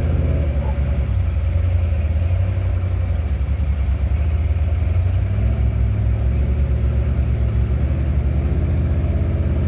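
A squarebody K5 Blazer's engine running steadily at low revs, a deep, even engine note throughout.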